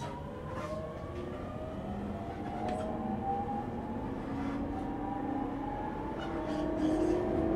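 Traction motors and VVVF inverter of a JR 209 series 0 electric train motor car, heard from on board: several whining tones rise steadily in pitch as the train accelerates, over wheel and track rumble that grows louder toward the end, with a few faint clicks.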